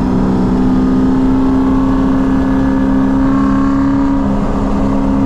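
Supercharged Chevy SS's V8 heard from inside the cabin, holding a steady drone at an even cruising speed with no change in pitch, over low road rumble.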